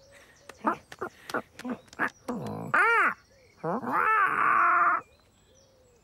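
Human-voiced cartoon cat and bird sounds. First comes a run of short chirps and clicks, then a loud cry that rises and falls about two and a half seconds in, then a longer, rougher cry from about three and a half to five seconds.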